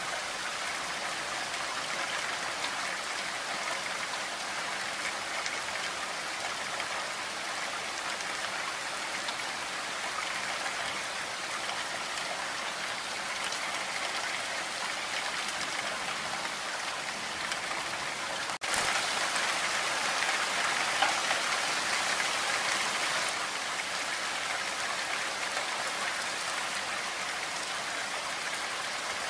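Rain falling steadily, a dense even hiss of drops. About two-thirds of the way through there is a sudden break, and for a few seconds afterwards it runs louder.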